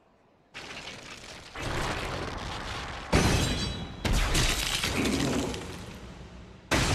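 Animated fight sound effects: after a brief hush, a series of sudden crashing, cracking impacts, each trailing off into a rumble. The loudest hits come about three and four seconds in.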